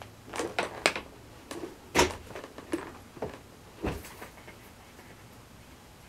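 A run of irregular knocks and clatters, about a dozen over four seconds, the loudest about two seconds in and a deeper thud near four seconds, then quiet room tone.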